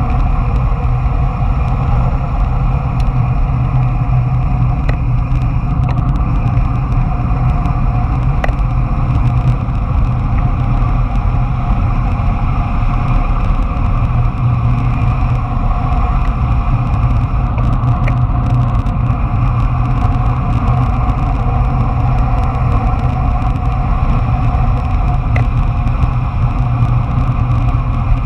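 Skateboard wheels rolling fast on asphalt together with wind rushing over the camera, a loud, steady rumble that never lets up.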